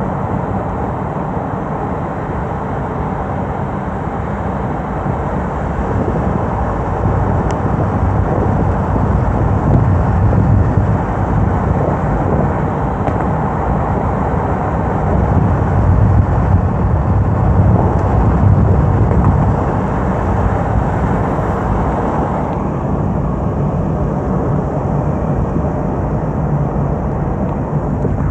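A car driving along a road: steady road and wind noise, a low rumble that swells a little at times.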